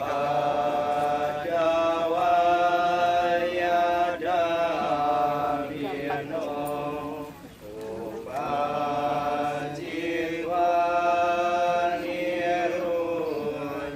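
Buddhist monks and lay mourners chanting together from chant books, in long held sung phrases with brief breaks for breath about halfway through.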